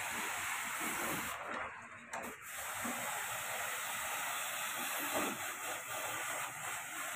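Pressure-washer jet hissing as it sprays water over the plastic front panel and grille of a split AC indoor unit. The spray stops briefly about a second and a half in, then resumes.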